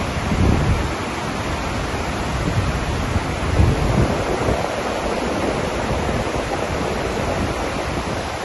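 Floodwater pouring over a concrete dam spillway: a loud, steady rush of falling water. Two low buffets of wind on the microphone swell up, about half a second in and again around four seconds in.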